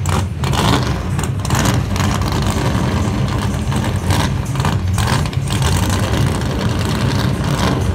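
A drag-prepared Chevrolet Camaro Z28's big 10-litre V8 rumbling at idle with a loud, pulsing low note.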